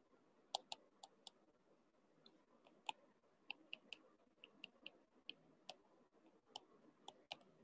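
Faint, irregular light clicks, roughly two a second, of a stylus tapping on a tablet's glass screen while handwriting.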